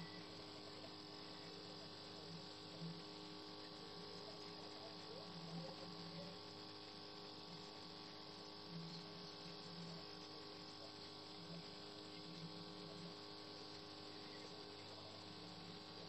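Faint steady electrical mains hum over low background hiss: room tone with no other distinct sound.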